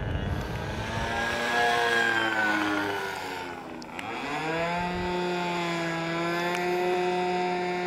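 Small methanol-nitro glow engine of a radio-controlled aerobatic model plane running in the air. Its pitch rises, drops sharply about four seconds in as the throttle comes back, then climbs again and holds steady while the plane hangs nose-up in a hover.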